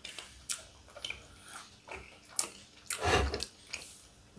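Light clicks and taps of fondue forks against the pot and plates, with chewing, as a meal of cheese fondue begins. One louder short rush of noise about three seconds in.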